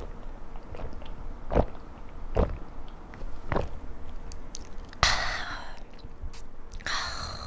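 A person gulping beer from a can close to the microphone, with about four swallows spaced roughly a second apart. Then two breathy exhales of almost a second each after the drink.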